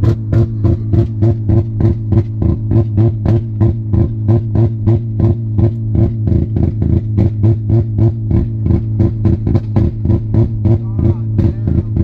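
Background music with a steady fast beat, about four pulses a second, over a heavy bass line.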